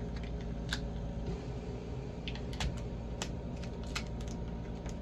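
Hands handling a plastic toy pack and its packaging: scattered light clicks and taps over a steady low hum.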